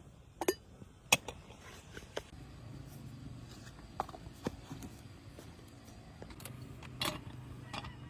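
Scattered light clicks and knocks of kitchen utensils and dishware being handled during cooking, over a faint low hum.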